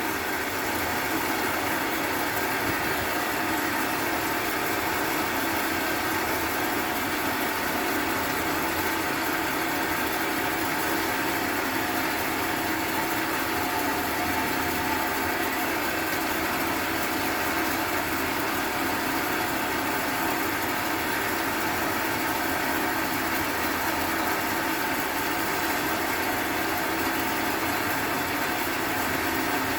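Small electric motor of a cue lathe running steadily at an even pitch, spinning the cue while the new tip is worked.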